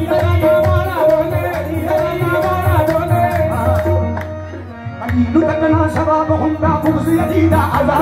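Live qawwali music: harmoniums holding steady notes under singing, with dholak and tabla drumming. The music thins out briefly about halfway through, then picks up again.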